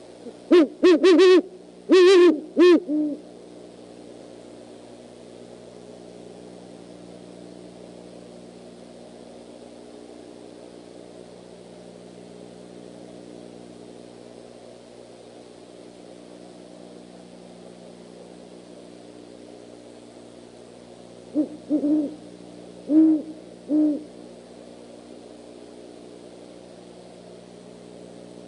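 Great horned owl hooting: a quick run of hoots in the first few seconds, then another short run about twenty seconds later, over a steady low hum.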